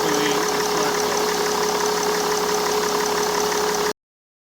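Mercedes E320 W211's engine idling steadily, its new serpentine belt running on a routing that bypasses the seized air-conditioning compressor, with a steady whine over the engine. The sound cuts off abruptly near the end.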